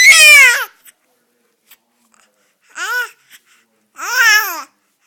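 Baby babbling: three high-pitched vocal sounds. The first comes right at the start and falls in pitch; two shorter ones, about three and four seconds in, rise and then fall.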